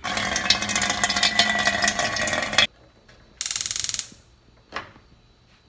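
Water running from a kitchen faucet into a stainless-steel sink, cut off abruptly after about two and a half seconds. Then a gas stove's spark igniter clicking in a fast run for about half a second as a burner knob is turned, followed by a single short knock.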